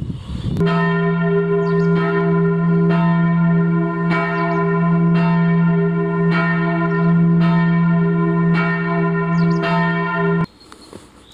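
Church bells ringing together, several bells striking in overlapping succession over a sustained low hum. The ringing cuts off abruptly near the end.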